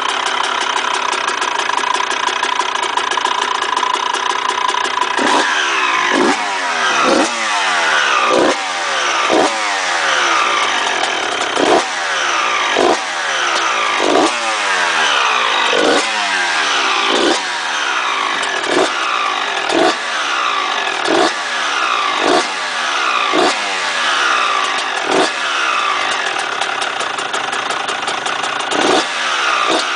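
Honda CR125's single-cylinder two-stroke engine running on a stationary dirt bike. It idles steadily at first; from about five seconds in the throttle is blipped roughly once a second, each blip a sharp rise in revs that falls quickly back.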